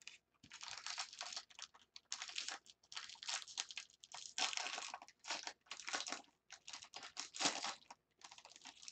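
Foil wrapper of a 2015 Bowman Draft Jumbo baseball-card pack being torn open and crinkled by hand: a run of short crinkling rustles with brief pauses, starting about half a second in.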